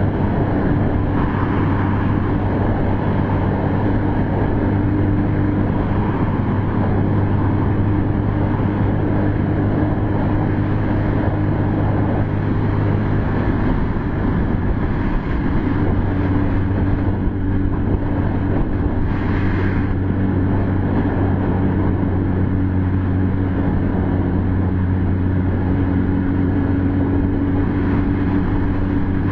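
Sport bike engine running steadily at road speed, with wind rushing past. The engine note breaks up briefly near the middle and then settles back into a steady drone.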